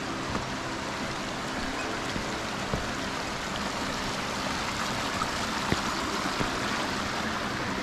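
Shallow, fast river running over rocks: a steady rush of water.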